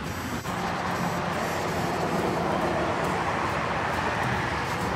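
Steady outdoor rushing noise with a low rumble, and a brief dropout about half a second in.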